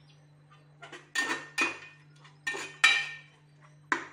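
A metal spatula scraping and stirring against the sides and bottom of an aluminium pressure cooker: five rough metallic scrapes, the first about a second in and the rest roughly half a second to a second apart.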